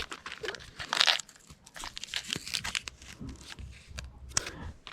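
Plastic packaging crinkling and rustling as it is handled, with irregular small crunches and clicks.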